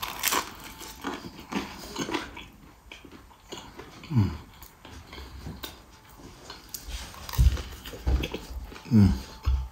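A man biting and chewing a sprat sandwich on dark bread with a cucumber slice, close up, with many small wet clicks and crunches of chewing. Twice, at about four seconds and near the end, there is a short falling 'mmm' of enjoyment.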